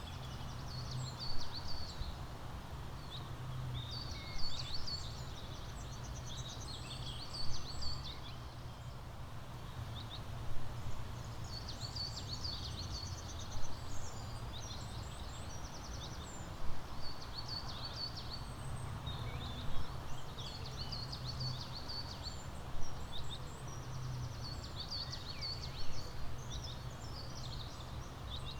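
Several songbirds chirping and twittering in quick, high calls and trills, over a steady low hum. A short louder peak recurs about every three seconds.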